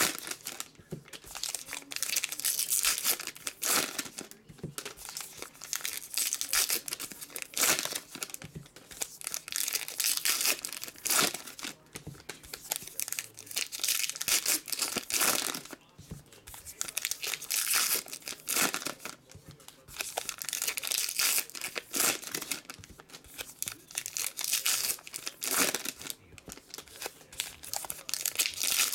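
Trading-card pack wrappers being torn open and crinkled by hand, in repeated crackly bursts of rustling a second or two apart.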